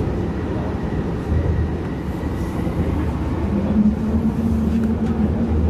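Yongin EverLine light-rail car running between stations, heard on board: a steady low rumble of wheels and running gear. About three and a half seconds in, a steady low hum joins the rumble.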